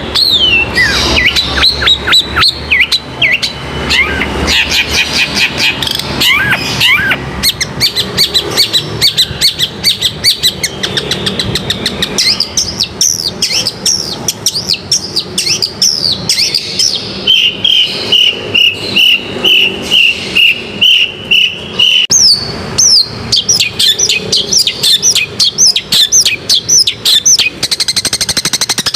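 Long-tailed shrike (cendet) singing a fast, varied song of whistled notes and harsh chattering clicks. In the middle it gives a run of about ten evenly spaced notes, about two a second.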